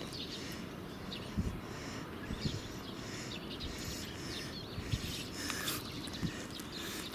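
Steady outdoor background noise with scattered short, high chirps and a few soft, low thumps.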